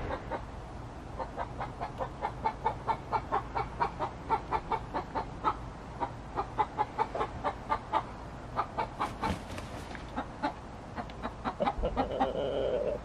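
Buff Orpington chickens clucking in quick runs of short clucks, about four or five a second, with brief pauses. A louder, harsher burst comes near the end.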